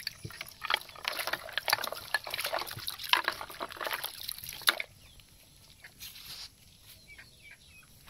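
Water splashing and sloshing in a plastic bucket as blocks of ice are pushed in and swished around, with a sharper splash just before five seconds in, then quieter.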